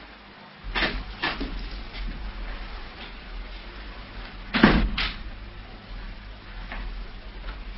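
Radio-drama sound effect of a door. Two clicks about a second in as it is opened, then a louder bang a little past the middle as it is shut, with a few faint knocks after, over a low steady hum.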